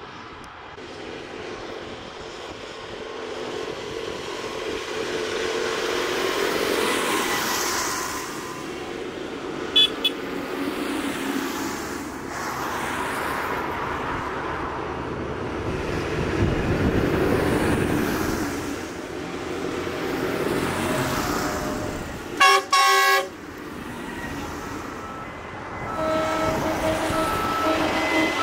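A line of tractors driving past on a wet road, engine noise and tyre hiss swelling and fading as each goes by. A vehicle horn gives two quick toots about ten seconds in and a louder two-part blast about 22 seconds in. Near the end a steady engine note builds as a tractor comes close.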